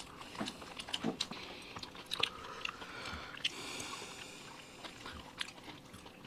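People chewing and biting large mouthfuls of food during a speed-eating challenge, with scattered small clicks and crunches at a low level.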